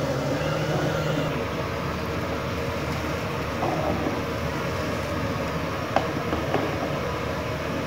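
Steady rumbling noise, with a single sharp knock about six seconds in and a fainter one shortly after.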